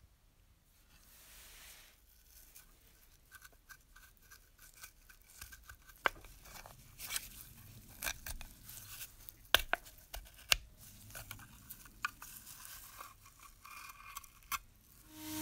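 Faint scraping and rustling of a rusty metal spirit burner from a toy steam engine being pried apart with a screwdriver, with a few sharp clicks. The burner's old cloth wick is drawn out of it.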